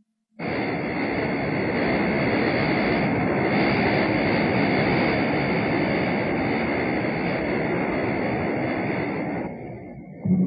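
Cartoon sound effect of the giant mechanical manta ray moving through the water: a steady rushing rumble that starts suddenly and dies down near the end.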